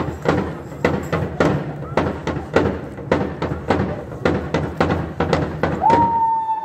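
Large cowbells (Schellen) shaken in rhythm, clanging about three times a second with a steady ringing between strokes. A long steady high tone sets in near the end.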